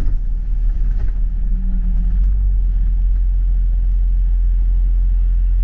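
A London bus running, heard from inside the cabin as a steady low rumble of engine and road noise.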